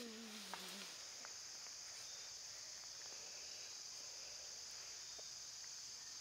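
Faint, steady high-pitched chorus of insects, crickets, droning without a break. In the first second a child's sung note slides down in pitch and trails off.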